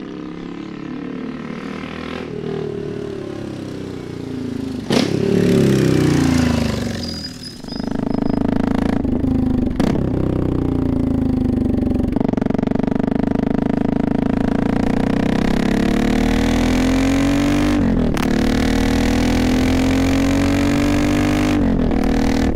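Big 650cc single-cylinder motorcycle engine with a custom exhaust, ridden hard. Its note climbs for the first few seconds and falls away, then runs loud and steady, dipping and climbing again at several gear changes.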